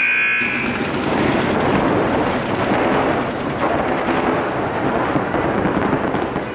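Many paintball markers firing in rapid, overlapping streams of shots, a dense continuous crackle of fire. A brief high tone sounds at the very start.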